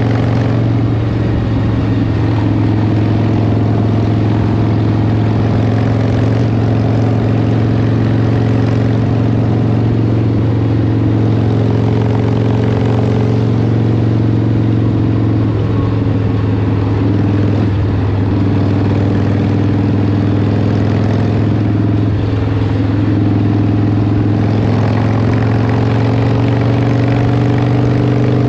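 Cruiser motorcycle engine running steadily at highway speed, heard from the rider's seat as a deep, even drone, with the engine note shifting slightly a few times. Wind rush and tyre hiss on the wet road run under it.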